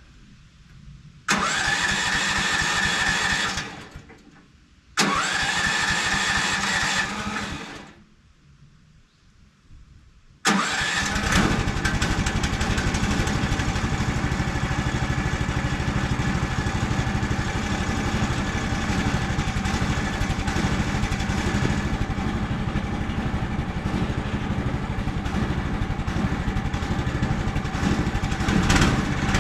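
A portable sawmill's gasoline engine on a cold start: the electric starter whines and cranks twice for about two seconds each without the engine catching, and on the third crank about ten seconds in the engine fires and keeps running steadily.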